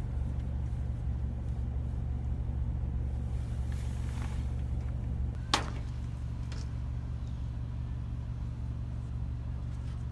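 Motor vehicle running with a steady low rumble, and a single sharp click or knock about five and a half seconds in.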